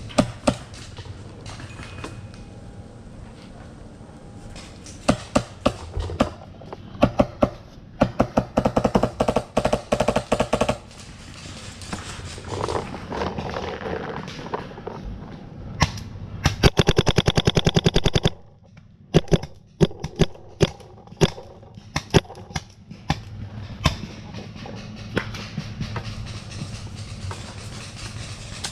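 Paintball markers firing: scattered single shots and quick strings of shots, with one long, very rapid burst of more than ten shots a second about two-thirds of the way through.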